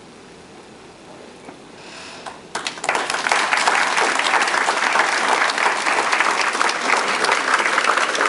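A short hush, then an audience breaks into applause about two and a half seconds in, clapping steadily and loudly.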